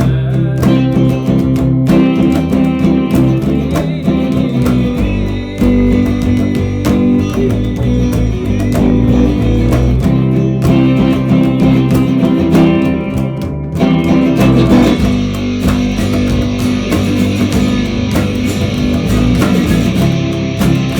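A band playing a rock song on electric guitar and bass guitar. About two-thirds of the way through, the sound grows fuller and brighter.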